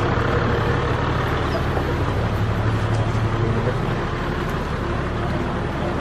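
Engine idling with a steady low hum.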